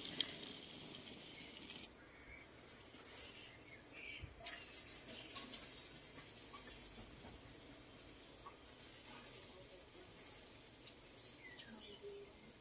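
Barbecue grill sizzling close up for about two seconds, cut off abruptly. Then faint garden ambience with small high bird chirps and a few light clicks.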